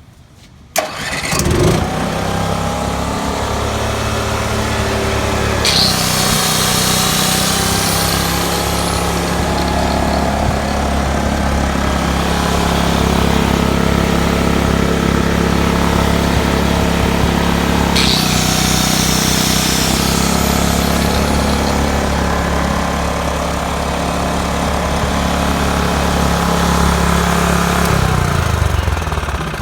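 Onan MicroLite 2800-watt RV generator starting up about a second in and then running steadily, a hiss joining twice for several seconds, before it shuts down near the end with its pitch falling away.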